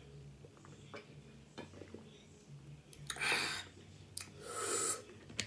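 A person drinking a carbonated orange-mango drink from a bottle: faint swallowing clicks, then two short breathy exhales as the bottle comes down, the fizz catching in the throat.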